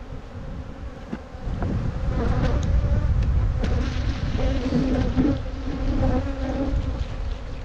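Honeybees buzzing at a worked hive, the hum growing louder about two seconds in and holding steady, with a few faint knocks.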